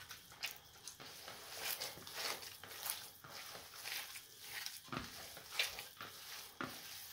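Hand kneading moist bulgur salad (kısır) with lemon slices: soft, irregular squishing strokes, with a couple of duller thuds in the second half.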